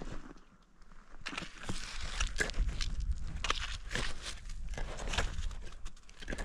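A climber's footsteps on the mountain route, a little under a second apart, starting about a second in, over a low steady rumble.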